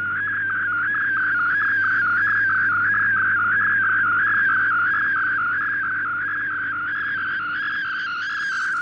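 Shortwave digital picture transmission (MFSK image mode, decoded in fldigi): a single warbling tone near 1.5 kHz that wavers up and down about three times a second as the image lines are sent, over a faint low hum.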